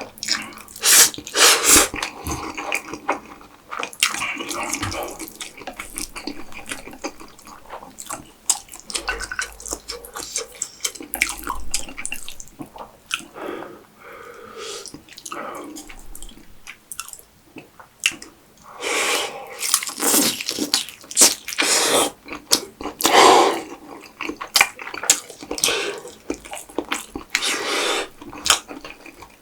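Close-miked eating sounds: wet chewing, smacking and sticky mouth clicks on saucy spicy food. Louder bursts come about a second or two in and again between roughly 19 and 24 seconds.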